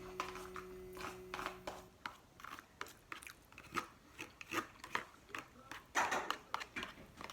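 Close-up chewing of noodles: many short wet mouth clicks and smacks, bunching up and getting louder around six seconds in. For the first two seconds, faint steady music from a children's TV show plays underneath.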